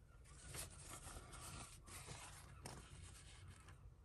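Near silence, with faint rustling of tissue paper and a few light handling ticks.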